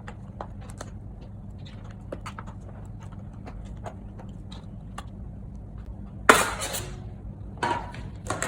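Small metallic clicks and taps of a precision screwdriver and loose screws working on a MacBook Air's aluminium bottom case, with a louder clatter about six seconds in and two smaller knocks near the end, over a steady low hum.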